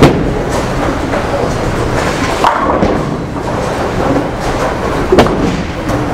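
A bowling ball thuds onto the lane at release, rumbles down the wood and crashes into the pins about two and a half seconds later, over the steady rumble of a busy bowling alley. Another sharp crack comes about five seconds in.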